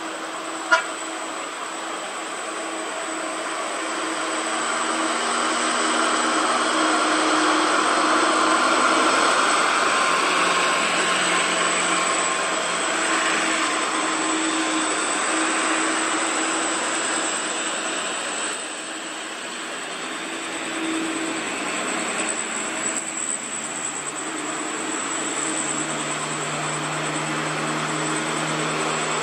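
Diesel cargo truck engines running on a hill road, the sound swelling and easing as the loaded trucks move past. A single sharp click comes about a second in.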